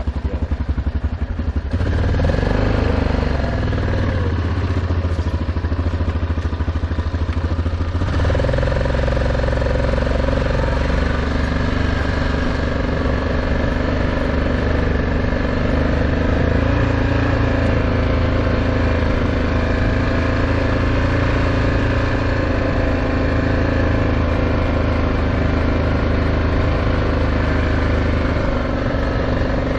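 Motor vehicle engine running steadily under way, its note shifting about two seconds in and again about eight seconds in.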